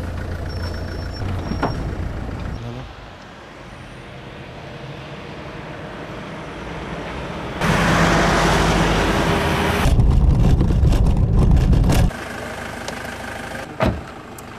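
Ambulance and emergency vehicle engines running, with a low rumble from the vehicles. A loud rushing noise starts about eight seconds in and gives way to a heavy low rumble that stops abruptly about four seconds later.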